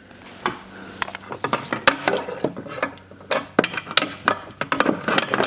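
Irregular clicks, knocks and clatter of hands rummaging through a sewing machine case, handling the things inside it, busiest from about a second and a half in.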